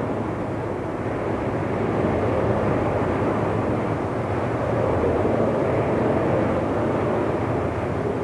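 Strong desert wind driving blowing sand in a dust storm: a steady rushing noise that swells a little in the middle.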